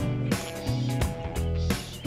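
Background music with a steady beat and a repeating bass line.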